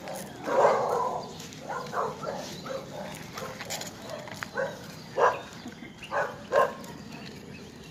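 A dog barking, about six short barks spaced unevenly.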